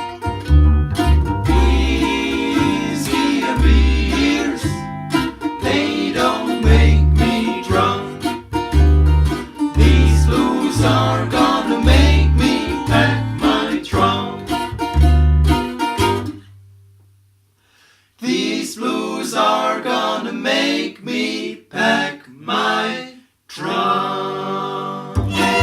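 String band playing an instrumental break: picked guitar and banjo over a bass line. About two-thirds of the way through the music thins and falls almost silent for a second or two. Plucked notes then carry on without the bass, and the bass comes back near the end.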